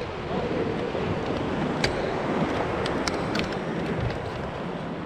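Wind buffeting the microphone over water lapping at a kayak hull, with a faint wavering tone in the first second and a half and a few sharp clicks of handling about two and three seconds in.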